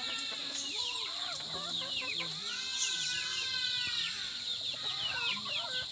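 Chickens clucking with many short calls, and one longer drawn-out call a little after two seconds in, over a steady high-pitched hum.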